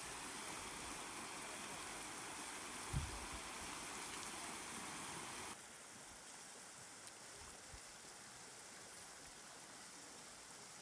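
Shallow creek rushing over stones, a steady wash of water noise. There is a brief low thump about three seconds in, and the level drops about halfway through.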